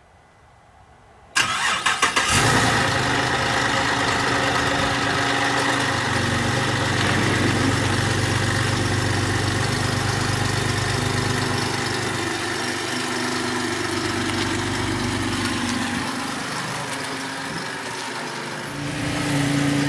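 Holden VZ Commodore's Alloytec V6 cranking and catching about a second and a half in, then idling steadily. The owners report that this engine knocks.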